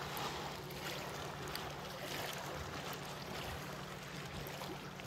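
Steady riverbank ambience: water lapping and light wind, with a faint steady low hum and a few small clicks.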